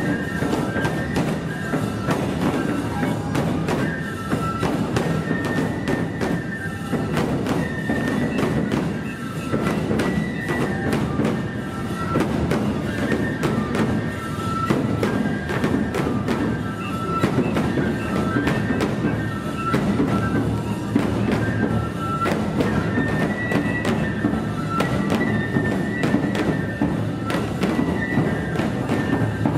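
Nebuta bayashi festival music: bamboo flutes playing a repeating high melody over steadily beaten taiko drums and clanging hand cymbals.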